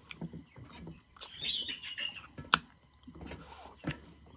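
Eating noises: scattered sharp mouth clicks and smacks, one louder than the rest about two and a half seconds in, with a brief high-pitched squeak a little over a second in.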